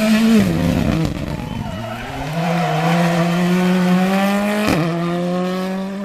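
Rally car's engine at high revs. The pitch drops and wavers in the first couple of seconds as the car comes off the throttle, then climbs steadily as it pulls through a gear. Near the end there is a sharp crack at an upshift.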